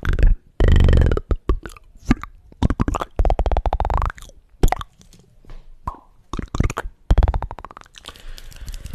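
Close-miked ASMR mouth sounds: wet clicks and pops mixed with short croaky, gurgling voiced noises, coming in bursts about a second in, around the middle and near the end.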